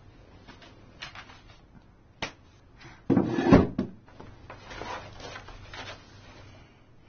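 A wooden desk drawer and papers being handled: light clicks and rustles, then the drawer shut with a loud knock about three seconds in, followed by softer rustling.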